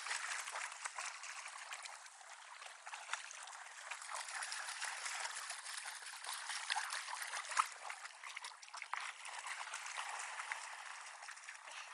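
Shallow river water running over rocks, with the splashing of a dog wading through it.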